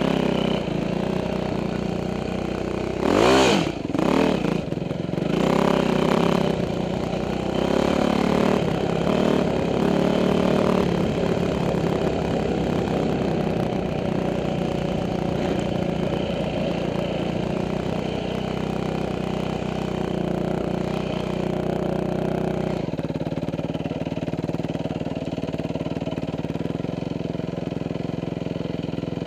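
2006 Yamaha YZ450F's single-cylinder four-stroke engine under way on a sandy trail, revved sharply a couple of times in the first few seconds, then run at changing throttle. About three-quarters of the way through it settles to a steadier, lower note as the bike rolls slowly.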